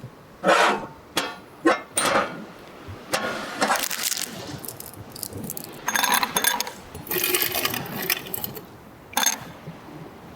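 Ice and glass clinking in short, irregular bursts as a whisky highball is mixed.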